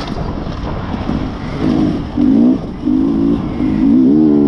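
Beta enduro motorcycle engine revving hard in repeated bursts, its pitch climbing and dropping as the throttle is opened and closed.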